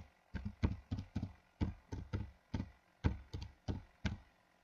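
Typing on a computer keyboard: about fifteen keystrokes, roughly three a second, each a sharp click with a low thump.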